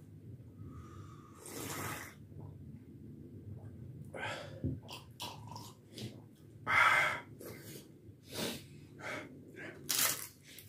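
Close-up eating and drinking sounds: heavy breaths and sniffs in short bursts, a few sharp clicks as glasses are set down on the table, and papad being bitten near the end.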